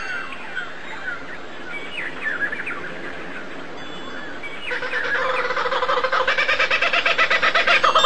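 Small birds chirping in short falling notes. About halfway in, a louder call takes over: a rapid pulsing with a steady pitch, growing louder toward the end.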